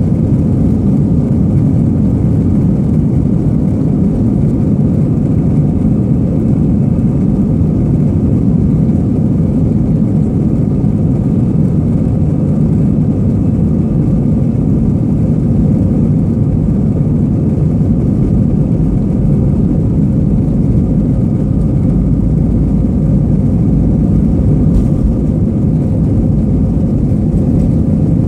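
Airbus A320 cabin noise over the wing: the jet engines' loud, steady rumble with a faint whine above it as the airliner moves along the runway for takeoff.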